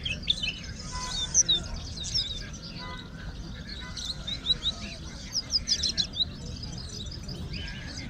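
Many small caged birds chirping and twittering together, short high chirps coming in quick runs, over a steady low background rumble.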